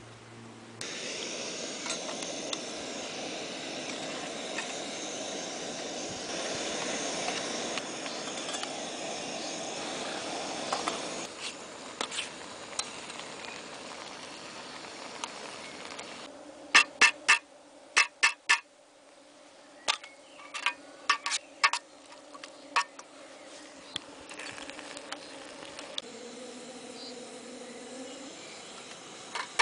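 Coleman 533 dual-fuel camp stove burner hissing steadily; it drops to a quieter hiss about eleven seconds in. Later comes a run of sharp metal clinks from the cookware.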